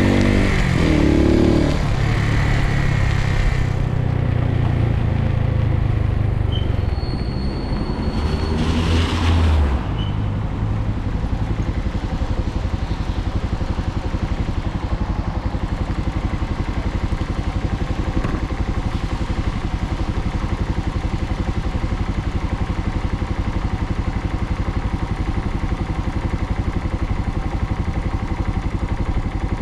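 Suzuki TU250x's single-cylinder engine pulling away and accelerating in the first few seconds, then running steadily under an even hiss of wind and wet road, with a brief louder surge about nine seconds in.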